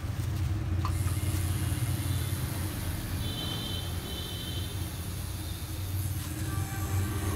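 Tattoo machine running with a steady low buzz while black work is being tattooed into the skin.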